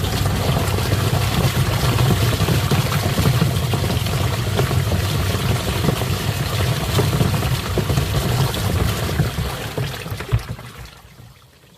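Twin-tub washing machine agitating a tub of water: a steady motor hum under churning, sloshing water, dying away near the end.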